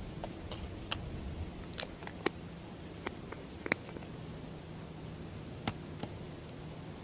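Scattered short, sharp clicks and taps, about ten in all with two louder ones near the middle, over a steady low hiss and hum.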